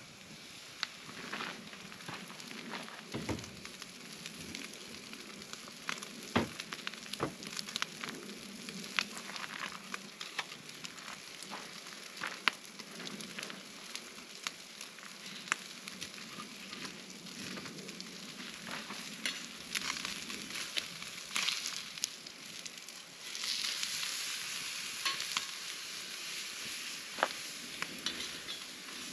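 Wood campfire crackling with sharp pops, with food sizzling on a wire grill grate over the flames. A few dull knocks come in the first seconds, and the sizzling hiss grows louder about three quarters of the way through.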